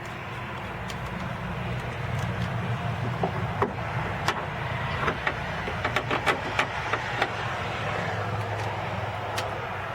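A passing car's low hum swelling and then easing off, over a run of irregular sharp clicks and taps, thickest in the middle, as door parts are handled.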